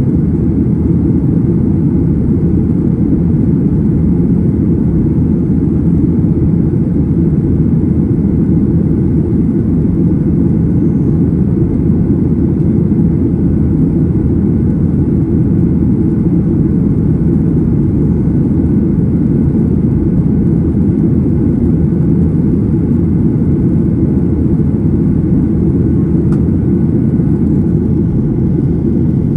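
Steady, low cabin noise of a Boeing 737-800 in the climb after takeoff: its CFM56-7B turbofan engines and the airflow over the fuselage, heard from a window seat over the wing.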